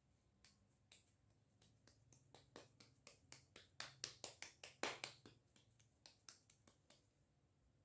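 Hands patting and pressing a ball of sweet maida dough flat between the palms to shape a tikiya: a run of faint quick pats, about three or four a second, loudest a little past halfway and thinning out near the end.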